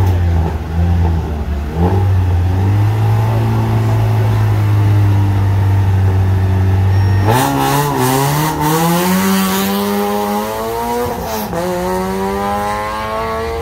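Peugeot 106 rally car engine held at steady revs on the start line, blipped a couple of times, then launched hard about seven seconds in. The pitch climbs as it accelerates away, drops at a gear shift near eleven seconds, then climbs again.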